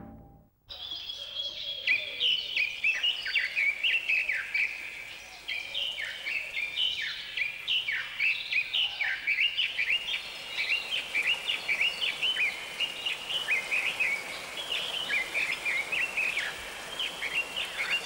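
Small birds chirping: a dense run of short chirps and quick downward-sliding calls that starts just under a second in and goes on without a break.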